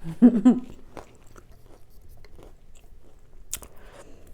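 Close-miked chewing of crunchy trail mix (pretzels and nuts), with soft crunches and clicks. A brief hummed voice sound comes right at the start, and a sharp click comes a little after three and a half seconds.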